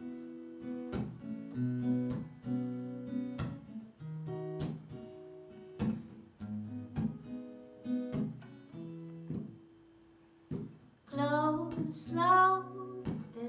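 Acoustic guitar playing a gentle intro of picked notes and soft strums, with a woman's voice beginning to sing about eleven seconds in.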